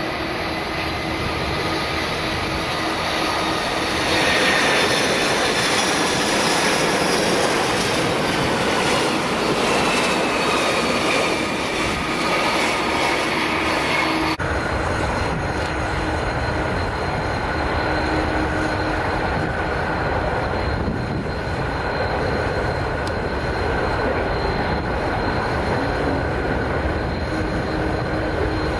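Japan Airlines Boeing 747 jet engines running as the airliner comes in to land, a loud whine whose tones slide down in pitch as it passes. It changes abruptly to a steady engine noise from aircraft on the runway about halfway through.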